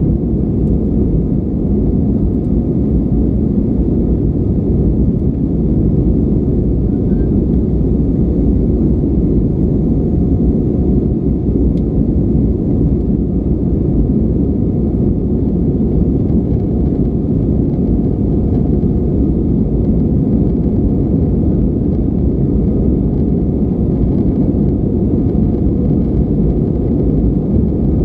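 Steady cabin noise inside an Airbus A320-232 climbing after takeoff: a dense low roar from its IAE V2500 turbofan engines and the airflow over the fuselage, with a faint steady hum above it.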